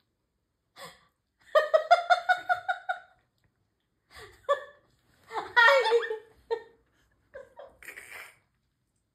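Amazon parrot imitating laughter: a run of about eight even, high-pitched 'ha' notes, followed by several shorter squawky calls and chatter.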